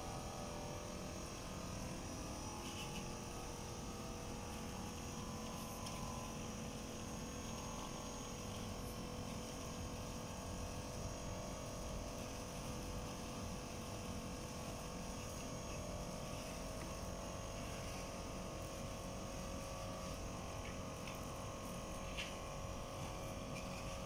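Small battery-powered motor and fan of a homemade plastic-bottle vacuum cleaner running with a steady hum while it sucks small beads up through its hose. A few faint ticks.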